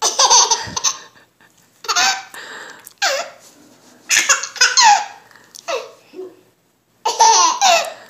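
Seven-month-old baby laughing in repeated short bursts, each set off by an adult's sudden hiccups.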